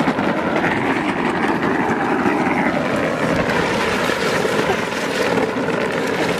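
Hard plastic wheels of a children's electric ride-on quad rolling downhill on concrete, a steady, rough rumble and rattle.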